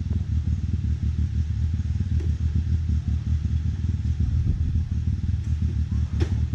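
Side-by-side UTV engine running at low revs while rock crawling, a steady, pulsing low rumble. A single sharp click about six seconds in.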